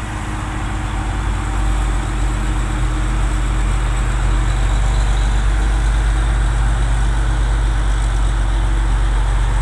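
Heavy loaded truck's diesel engine running with a deep, steady rumble as it drives past. It grows louder over the first few seconds, then holds.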